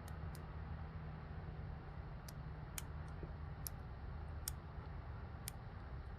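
Faint, irregular metallic clicks of a hook pick working the pin stack inside an Almont rekey padlock's brass keyway during single pin picking, about seven in all, over a low steady hum.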